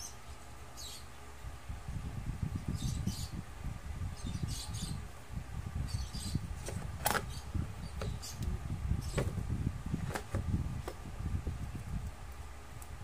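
Hands handling a new iPad and its cardboard box: a dull rubbing and knocking starts about two seconds in as the tablet is slid out and turned over. It comes with short faint squeaks and a couple of sharp clicks about seven and ten seconds in.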